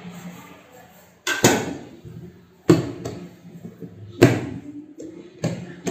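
Four sharp knocks, about a second and a half apart, as a metal bench scraper cuts a log of bread dough in two against the counter.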